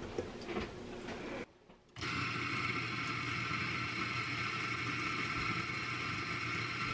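Electric espresso burr grinder grinding a dose of coffee beans: a steady motor whir that starts about two seconds in and holds an even pitch until just before the end.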